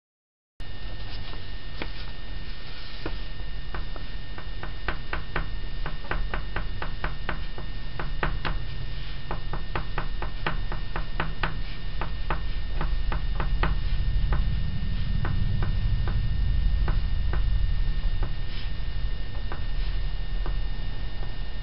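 Oil pastel stick tapping and scratching on paper over a hard tabletop: a run of quick, irregular ticks, about three a second, thinning out in the last third, over a steady low hum.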